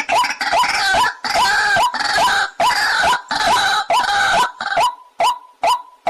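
White-breasted waterhens calling loudly: a harsh, noisy chorus over a run of repeated hooked notes, about two a second, which go on alone from about five seconds in.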